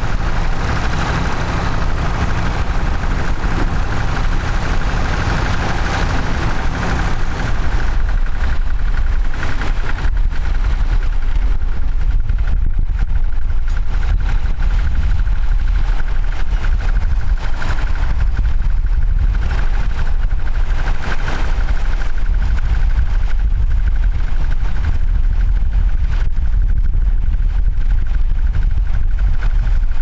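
Vintage tractor engines running steadily under load while ploughing: first a grey Ferguson working away, then, from about eight seconds in, a closer and louder blue vintage tractor pulling a mounted plough.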